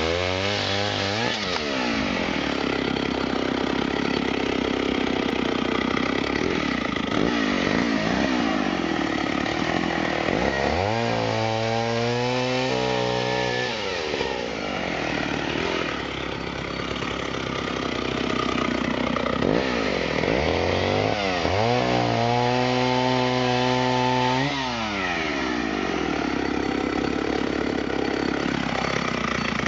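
Chainsaw running and cutting through a fallen tree trunk into log sections. Twice the engine note rises to a clear steady pitch for two to four seconds and then drops back into the harsher cutting sound.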